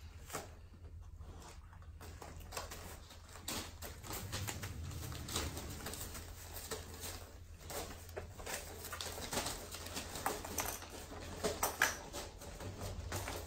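Puppies moving about on newspaper spread over the floor: scattered rustling and crinkling of paper and small knocks, over a low steady hum.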